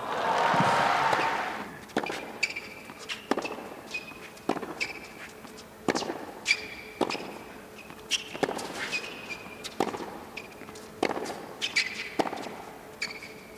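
A tennis rally on a hard court: racket strikes on the ball about once a second, back and forth, with court shoes squeaking between shots. A brief swell of crowd noise comes in the first second or so.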